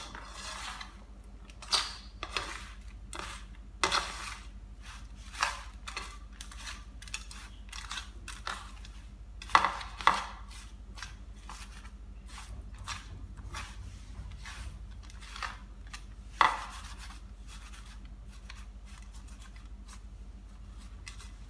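Bare hand mixing damp, crumbly quail feed and egg on an aluminium tray: fingers scraping and knocking against the metal with a soft rustle of grains, in irregular strokes that thin out near the end.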